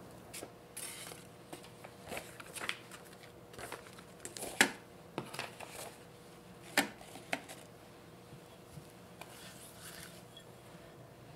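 Kitchen utensils being handled: a string of sharp clicks and knocks from a glass mixing bowl, spatula and parchment-lined metal cake tin, with soft paper rustling. The loudest knock comes about four and a half seconds in, and another near seven seconds.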